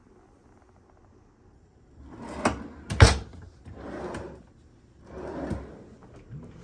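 A drawer being slid open and shut by hand: a scraping slide, then a sharp knock, the loudest sound, about three seconds in, followed by two more sliding strokes.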